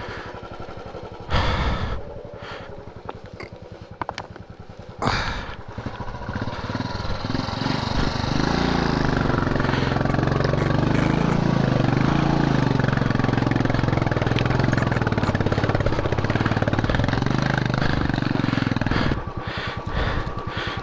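Motorcycle engine revved hard. Two short sharp bursts come in the first few seconds, then from about six seconds in it is held at high revs for over ten seconds, its pitch wavering up and down, before it drops back near the end.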